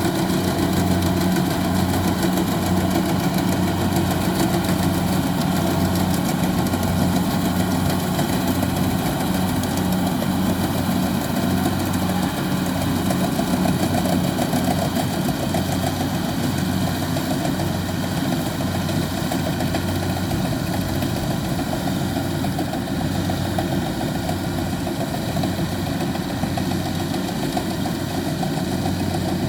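Kubota rice combine harvester's diesel engine and machinery running steadily at an even pitch.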